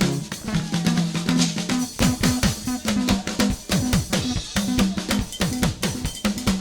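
Live praise band playing without singing: a drum kit with quick snare and rimshot hits and bass drum over a held bass note. From about two seconds in, a run of short low notes that each drop in pitch is added to the percussion.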